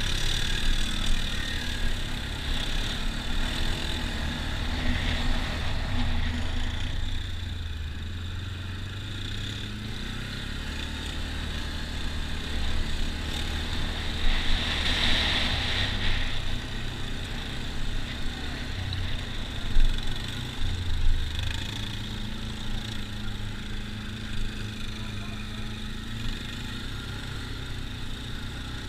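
ATV engine running as the quad rides slowly along a dirt trail, its note rising and falling with the throttle.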